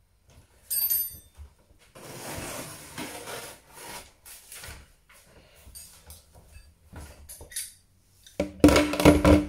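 A knife cutting into plastic wrap and packing tape on a cardboard appliance box: a sharp scrape about a second in, then rasping and scattered small scrapes and clicks. Near the end comes the loudest part, a dense burst of rustling and knocks as the packaging is handled.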